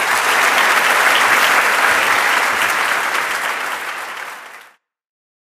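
Audience applauding, easing off slightly, then cutting off suddenly near the end.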